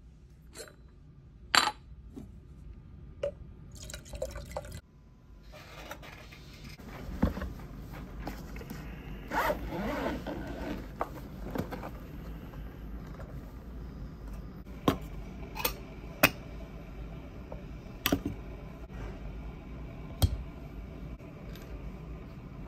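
Hands preparing espresso with a Flair Pro 2 manual lever espresso maker: a string of sharp clicks and knocks as its stainless-steel parts and cup are handled and set down, with scraping, and a spell of liquid being poured near the middle.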